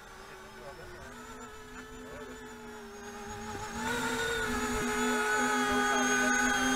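RC model jet's motor whining steadily, growing clearly louder about four seconds in as the jet comes in low and close.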